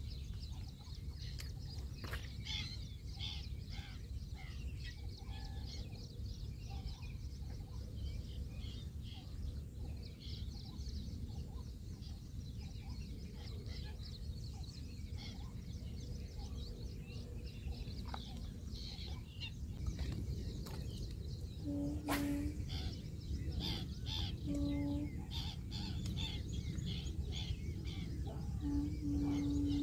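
Birds chirping over a steady low background rumble. From about two-thirds of the way through there are a few short, low, steady-pitched notes and a sharp click.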